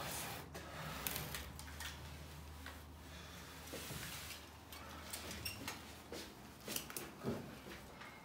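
Hands working pliers on a mock IED's wires and handling gear on a desk: scattered small clicks, taps and rustles over a low steady hum.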